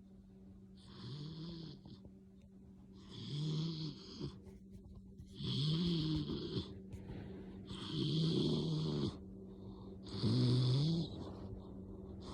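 A dog snoring loudly and rhythmically: about five snores, each roughly a second long, one every two to two and a half seconds. Each snore is a low tone with a breathy hiss on top.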